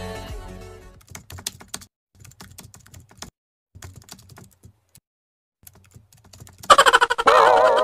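Computer keyboard typing sound effect: short runs of key clicks with pauses between them. Near the end a loud cartoon-style sound effect with a wobbling pitch cuts in.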